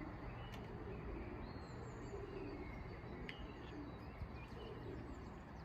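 Quiet ambience: a steady low rumble with a few faint bird chirps and a couple of small clicks.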